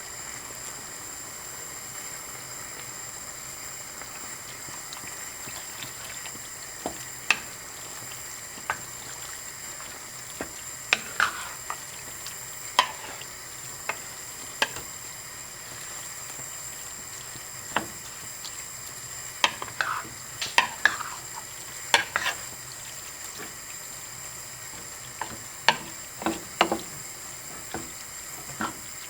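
Food sizzling in a frying pan with a steady hiss, while a utensil stirs it. Irregular sharp knocks and scrapes of the utensil against the pan come in clusters, starting a few seconds in.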